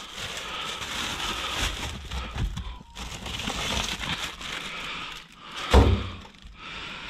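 Plastic bags of bread and produce rustling and crinkling as food is grabbed and shifted, with small knocks throughout and one sharp thump about six seconds in.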